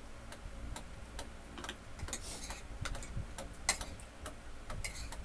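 Irregular light clicks and taps of spoons and forks against ceramic plates, with mouth sounds of eating, over a faint steady low hum.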